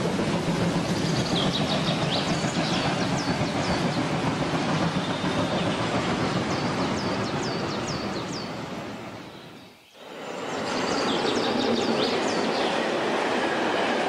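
Train passing on rails: steady rolling and rumbling wheel noise with many short, high wheel squeals. It fades down almost to quiet just before ten seconds in, then swells back up with more squeals.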